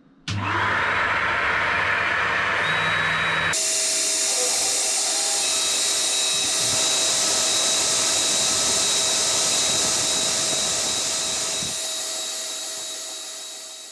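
CNC router spindle starting up with a sudden rising whine, then running steadily; about three and a half seconds in a louder, brighter hissing noise joins as the machining of the carbon fibre sheet gets under way. The sound fades out near the end.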